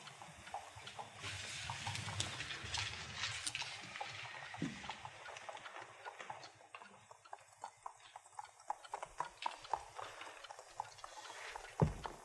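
Faint clip-clop of horses' hooves, irregular hoof strikes throughout, with a soft hiss in the first few seconds.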